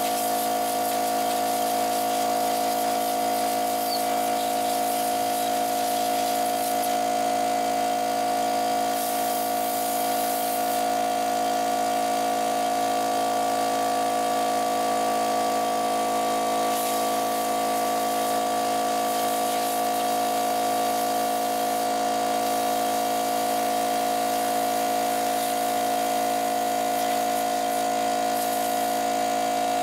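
Air compressor running steadily as it refills its tank after use, a constant even hum that holds the same pitch throughout.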